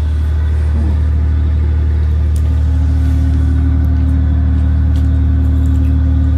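A steady low engine hum, like an engine idling, holding one even pitch with no change in speed.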